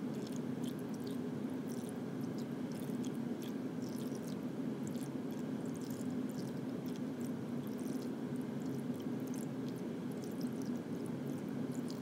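Water drizzled from a plastic cup over a modelling-clay landscape in a foil pan, falling as scattered faint drips and ticks, over a steady background hum.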